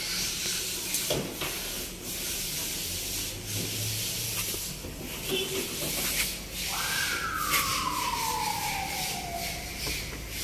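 Tyre repair kit aerosol hissing steadily as it discharges its sealant and propellant gas through a hose into a flat car tyre's valve, slowly inflating the tyre. About two-thirds of the way through, a separate tone slides down in pitch over about three seconds.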